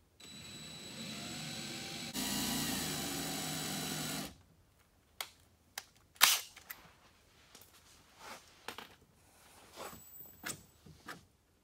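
Cordless drill with a chamfer bit running for about four seconds, speeding up about two seconds in, as it cleans up freshly drilled clip holes in the car's rear bumper. A few sharp clicks and light taps follow.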